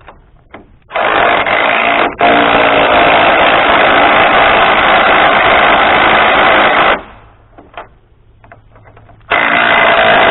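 Handheld power tool running hard in long runs: about a second in it starts, stops for a moment near two seconds, runs on for about five seconds, then after a few seconds of light clicks starts again near the end.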